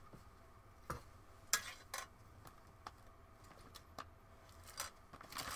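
Small hard objects being handled: a scattering of light clicks and clinks, about seven in all, the sharpest about a second and a half in.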